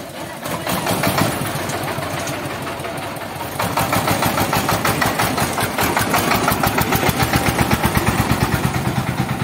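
Exposed single-cylinder diesel engine of a cargo trolley running with a fast, even beat. It gets louder about three and a half seconds in.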